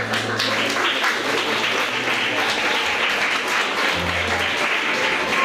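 Audience applauding, a dense patter of many hands clapping, with music playing underneath.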